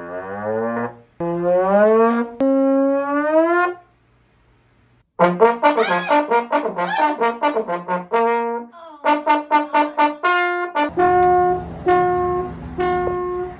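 Brass-like musical sound effects: a few held notes that slide in pitch, a pause, a quick run of notes, then short repeated held tones over a low rumble near the end.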